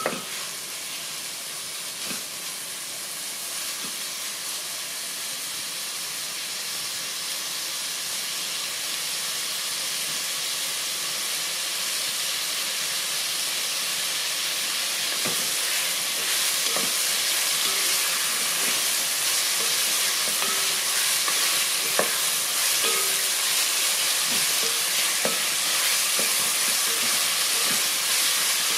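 Ground beef frying in sesame oil in a pot: a steady sizzle that grows slowly louder as the pan heats, with scattered clicks and pops.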